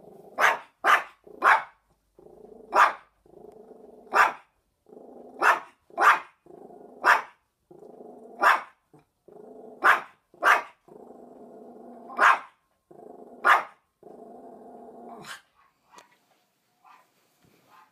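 Small poodle barking sharply about fourteen times at irregular intervals, growling steadily between the barks. The barking and growling stop about three seconds before the end.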